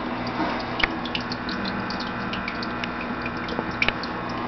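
Steady trickling water over a low pump hum, with scattered small ticks and drips, typical of a turtle tank's water filter running.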